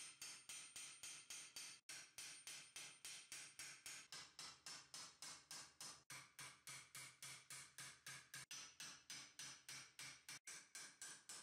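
Small hammer striking a 1.5 mm mild-steel gauntlet plate on a steel stake: rapid, even taps about five a second, each with a short metallic ring.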